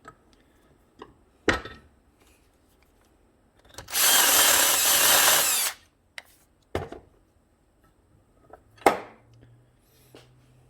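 Power drill run for just under two seconds, cutting into metal to clean up a drilled hole. Single sharp knocks come before and after it.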